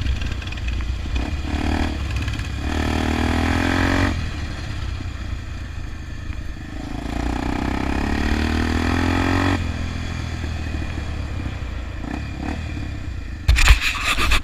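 Honda XR 250 Tornado's single-cylinder four-stroke engine running, its revs climbing twice and dropping off sharply each time. A burst of loud knocks and clatter comes near the end.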